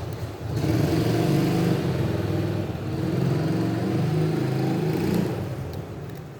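A small motor runs for about five seconds, starting half a second in, its pitch wavering slightly, then dies away.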